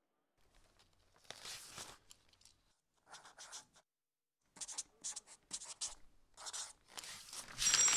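Pen scratching on newsprint in short, quick strokes as a word is written. A louder scrape or rustle of the paper comes near the end.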